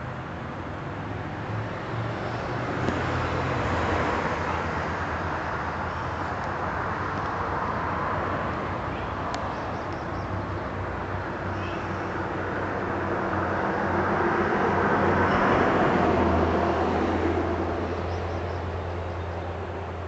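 Road traffic: vehicles passing with a broad rushing noise that swells twice, a few seconds in and again near the end, over a steady low hum.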